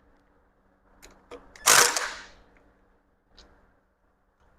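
Metal tools and engine parts being handled: a few light clicks, then one short, loud metallic clatter about two seconds in.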